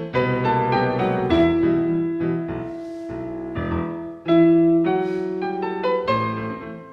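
Solo piano playing ballet class accompaniment: a melody of struck notes over lower notes held for a second or more.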